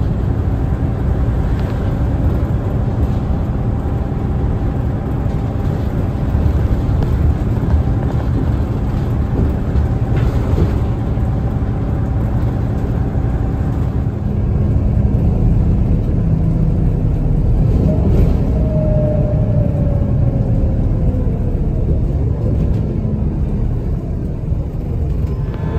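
Inside a moving city bus: steady low engine and road rumble, with a tone that glides down in pitch about two-thirds of the way through.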